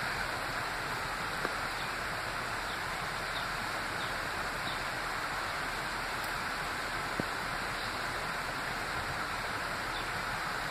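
Steady, even hiss of water: a flowing river with light rain falling, and a faint click or two.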